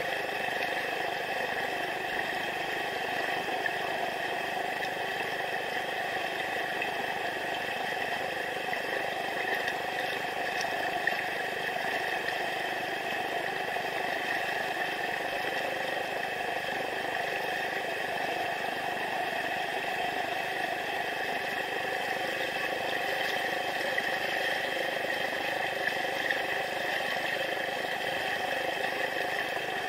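River rapids rushing over rocks close by: a steady, unbroken roar of whitewater.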